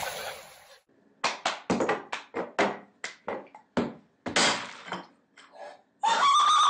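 Rhythmic hand claps and taps, several a second for about three and a half seconds. They stop, and a loud, high-pitched sustained tone follows near the end.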